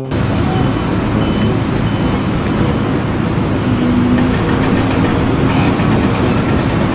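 Loud, steady mechanical noise of machinery running.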